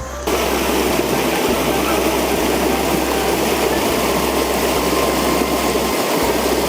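Rushing, splashing water of a spring-fed stream close to the microphone, a loud steady noise that cuts in just after the start.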